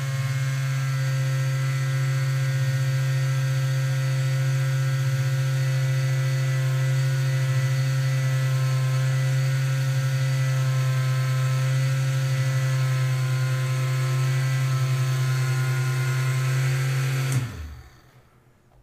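Small electric motors of a 3D-printed bubble blower running: the geared motor turning the bubble wheel and the propeller fan motor, a steady buzzing hum with a whine above it. It cuts off suddenly near the end as the power is switched off.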